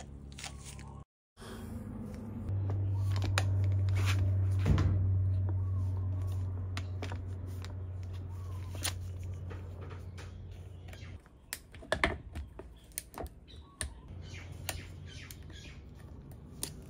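Light metallic clicks and scrapes of a tiny flathead screwdriver prying the stopper ring out of a Honda PCX front fork tube while the spring seat is held pressed in. A steady low hum runs through the first half and stops suddenly, after which the clicks come thicker. Birds chirp faintly.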